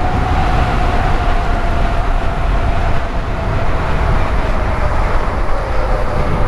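Onyx RCR electric bike being ridden, its hub motor whining in one steady tone that slowly falls in pitch, over a heavy low rumble of wind and tyres.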